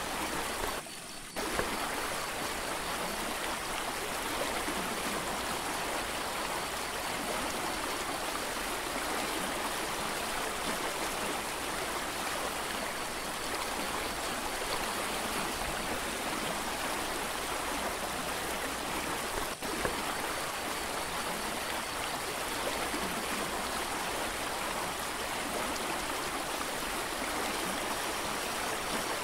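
A rushing mountain creek: a steady wash of flowing water.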